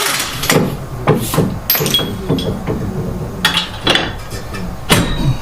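Metal hand tools clinking and knocking against metal in a string of separate sharp hits, with voices talking faintly underneath.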